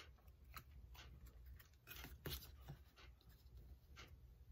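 Near silence with faint rustles and light taps of cardstock being handled and pressed down by fingertips, over a low steady hum.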